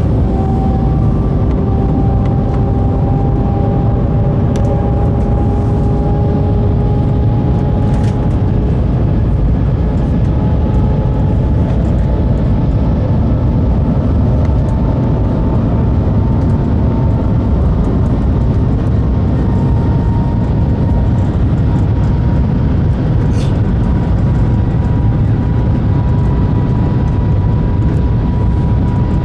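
Shanghai maglev train running, a steady loud rumble with a faint whine that rises slowly in pitch.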